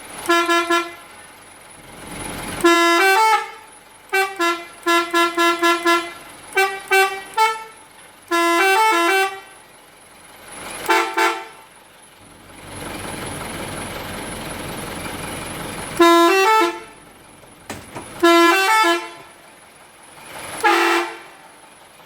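Telolet musical horn on a fire-service bus, played in repeated bursts of short melodic notes, including a quick staccato run of notes a few seconds in. A steady rushing noise fills several seconds midway between the horn bursts.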